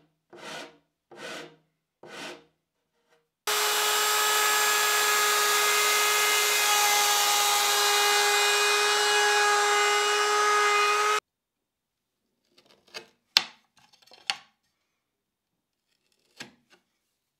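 An electric router running steadily for about eight seconds as it cuts along the edge of a wooden board, stopping suddenly; it is the loudest sound. Before it, a few rhythmic strokes of a hand file on a wooden edge; after it, a few scattered clicks and scrapes of a hand tool on wood.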